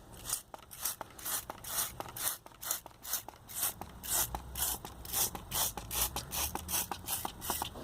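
Hand trigger spray bottle squirting soapy water in quick repeated sprays, about two or three a second, each a short hiss.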